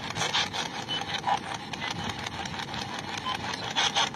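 Ghost box sweeping rapidly through radio frequencies, giving a steady run of choppy radio static chopped into many quick short bursts.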